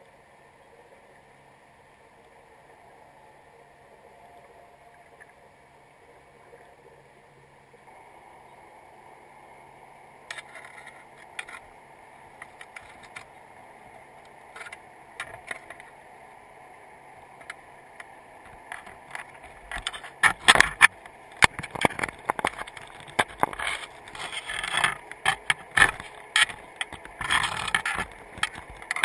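Underwater recording from a camera on a crab trap: a low steady hiss, then from about ten seconds in scattered clicks and knocks against the trap and camera rig. In the last third they come thick and loud.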